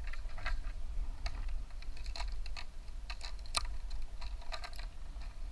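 Irregular light cracks and clicks, several a second, like twigs and leafy branches crackling as they are handled, over a steady low rumble.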